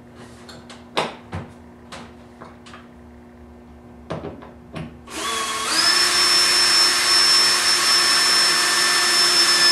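A few light clicks and taps, then about five seconds in a power drill starts up and runs steadily with a high whine, driving a screw to fasten a stainless steel clip that holds the standing seam metal roof panel.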